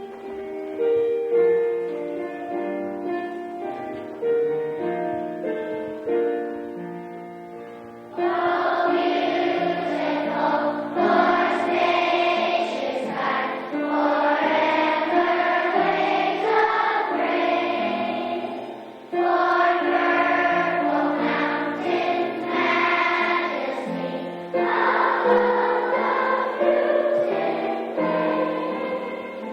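A group of children singing a song together as a choir. A quieter opening of held notes lasts about eight seconds, then the full singing comes in much louder, with short breaks between phrases.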